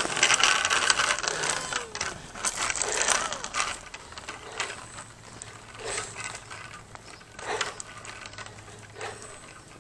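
A child's bicycle with training wheels rolling along a concrete sidewalk, its wheels rattling with quick ratcheting clicks. The clicking grows fainter and sparser as the bike moves away, down to a few separate clicks about every second and a half in the second half.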